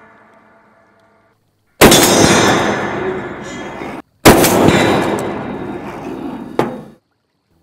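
Two heavy rifle shots from a Barrett M82A1 .50 caliber, firing steel-core rounds at a louvered steel barrier, each with a long fading tail. The first is cut off abruptly after about two seconds, and a sharp crack comes just before the second fades.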